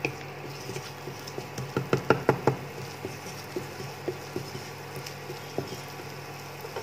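Wooden spatula knocking and scraping against a nonstick kadai while stirring chopped onion frying in butter. A quick run of knocks comes about two seconds in, then scattered single taps, over a steady low hum.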